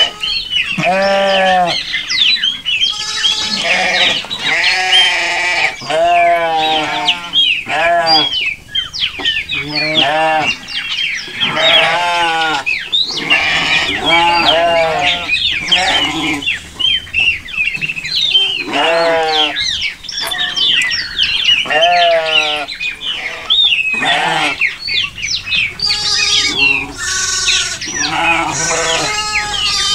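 Flock of domestic sheep bleating, one call after another every second or two, each a wavering call under a second long, some overlapping.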